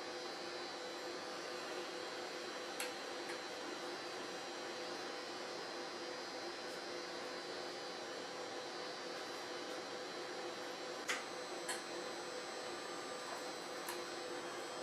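Steady electrical hum with several fixed tones over a faint hiss, broken by a few short clicks, one about three seconds in and three more in the last four seconds.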